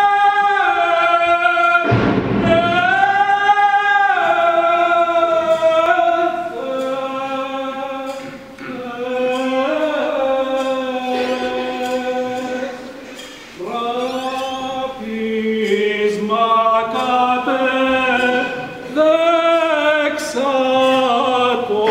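A group of men singing Byzantine liturgical chant a cappella, in slow phrases of long held notes with brief breaks between them.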